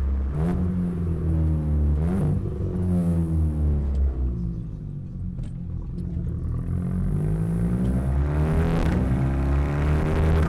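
Audi A3 2.0 TFSI's turbocharged four-cylinder engine and exhaust under way, pulling through the gears with brief cracks at the gear changes. About four seconds in the engine note drops and quietens as it eases off, then it climbs again near the end.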